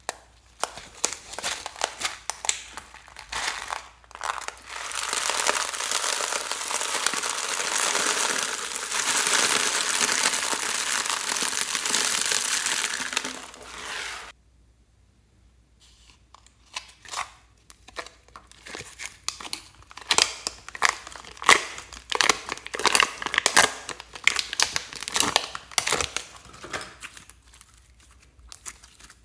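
Small plastic beads poured from a plastic bead tray into a glass dish of slime: a few scattered clicks, then a dense, steady rattling hiss of many beads falling for about ten seconds that cuts off suddenly. After a short pause, a run of sharp sticky clicks and crackles follows as slime is handled.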